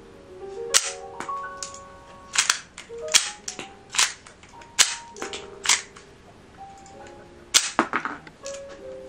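ABS plastic toy FN M1900 pistol being worked by hand: a series of sharp plastic clacks, irregularly spaced and sometimes in quick pairs, as the slide and action are cycled and a toy shell is ejected. Soft background music plays underneath.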